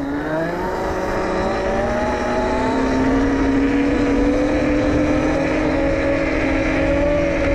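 Electric motor of a 72-volt, 5000-watt electric pit bike whining under throttle during a wheelie. Its pitch rises over the first few seconds and then holds steady, over a steady rush of wind noise.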